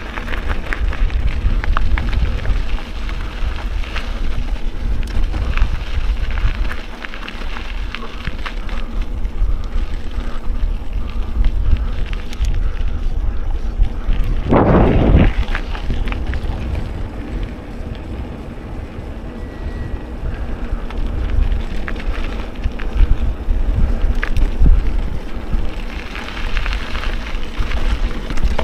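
Mountain bike ridden over rough trail: wind rushing on the microphone over the rattle and clatter of the bike and tyres on the ground, with a brief louder rush about halfway through.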